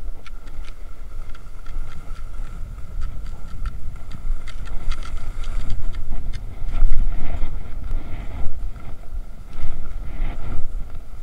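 Cross-country skiing on a groomed track: wind buffeting the microphone, with skis sliding on snow and scattered clicks and scrapes from skis and poles.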